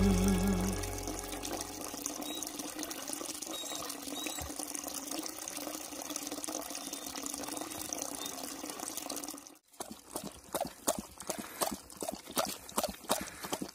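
A thin stream of water trickling steadily from a stone spout into a basin. After a short break about two-thirds of the way through, a dog laps water from the basin in quick even strokes, about three a second.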